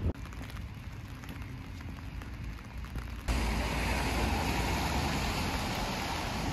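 Steady rain hissing on wet paving, which starts abruptly a little over three seconds in. Before it there is only a low rumble.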